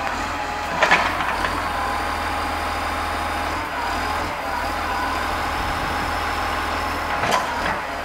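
John Deere 770GP motor grader's diesel engine running steadily, with a steady high whine over it. Two short, louder noises break in, about a second in and again near the end.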